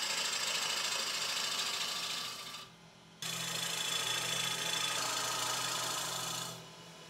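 Wood lathe running with a turning tool cutting the spinning sycamore: a steady hiss of the cut over the motor's low hum. The cutting breaks off for about half a second a little before the middle, resumes abruptly, and stops near the end while the hum goes on.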